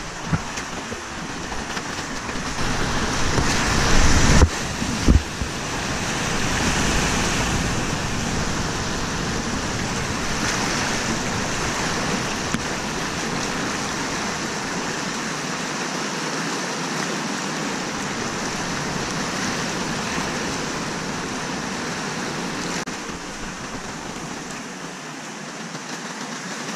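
Whitewater rapids rushing steadily around a kayak, with paddle strokes in the water; louder for a moment about four seconds in, with two heavy thumps of water striking the kayak or camera.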